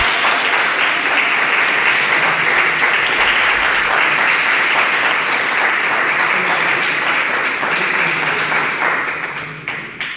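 Applause from a small group clapping their hands, steady and then fading out near the end.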